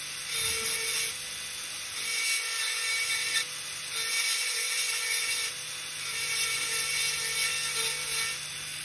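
Dental handpiece with a fissure bur running with a steady whine, cutting into a model upper incisor in four stretches of one to two seconds each.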